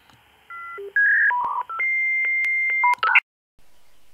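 Channel-intro sound logo of synthetic electronic beeps, like telephone keypad tones. A quick run of short beeps at different pitches is followed by one steady beep held for about a second, and it ends in a short flurry of beeps just after three seconds in.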